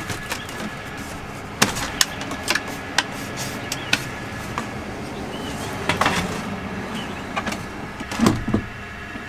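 Scattered light knocks and clicks of objects being handled and moved about in a cabinet, with a louder bump or two near the end.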